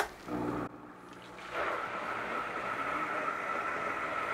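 Countertop blender switched on with a click, its motor coming up to a steady run about a second and a half in as it churns a liquid brine of water, spice powder and butter extract.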